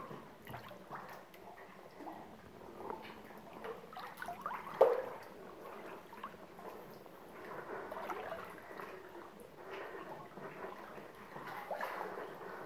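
Cenote water sloshing and splashing irregularly as someone moves in the cave pool, with small drips and gurgles. One sudden, much louder hit comes about five seconds in.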